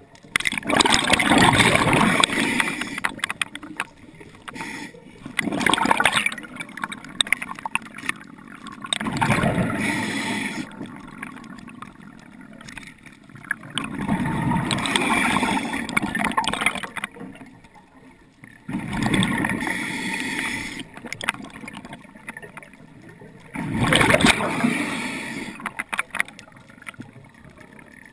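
A scuba diver breathing through a regulator underwater: six loud bubbling, hissing breaths recur about every four to five seconds, with faint water noise between them.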